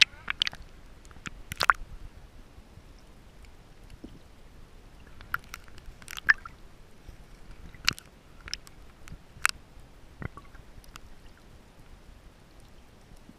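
Water sounds picked up by a snorkeler's camera as it goes under the sea surface: scattered sharp clicks and pops, about eight of them, over a low, muffled water noise.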